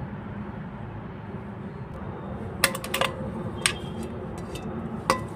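Metal bowl and metal cooking pot clinking together as the bowl is tipped and emptied into the pot. There are sharp clinks with a short ring, a quick cluster a little past the middle and one more near the end, over a steady low hum.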